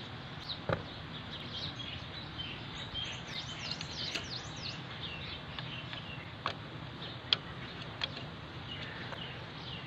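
Small birds chirping and twittering, thickest a few seconds in, over a steady low background. A few sharp clicks sound as metal engine parts are handled, the loudest near the end.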